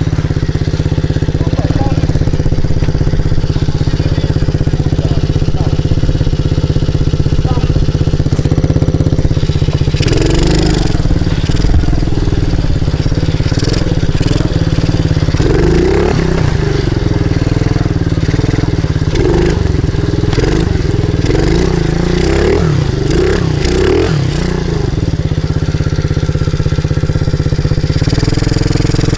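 Pit bike engine running at a steady low speed. From about ten seconds in, its pitch rises and falls repeatedly as the throttle is opened and closed while riding, and it settles back to a steady run near the end.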